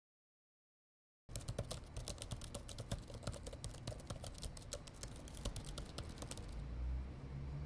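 Rapid typing clicks of a message being tapped out on a smartphone touchscreen keyboard, starting about a second in and stopping shortly before the end.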